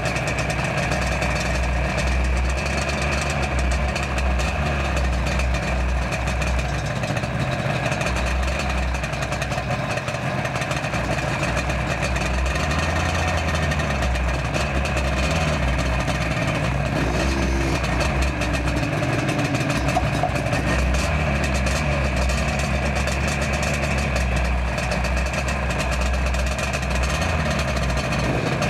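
Yamaha RD400's air-cooled two-stroke twin running steadily as the bike rolls along at low speed, with wind rumble on the bike-mounted microphone.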